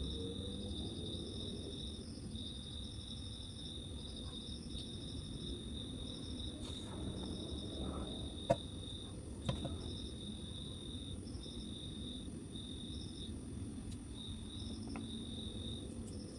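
Crickets chirping in the background in a continuous pulsing trill, broken into short runs with brief gaps, over a low steady hum. Two small sharp clicks sound about halfway through.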